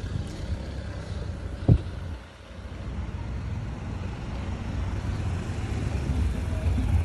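A car's low engine rumble as it drives past, growing louder through the second half, with one sharp knock just under two seconds in.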